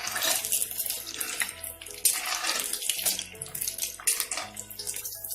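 Breadcrumb-coated paneer fingers deep-frying in hot oil, a hissing sizzle with crackles.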